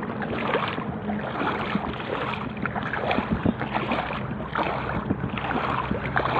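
Seawater splashing and sloshing close to the microphone in irregular small splashes, over a steady low hum.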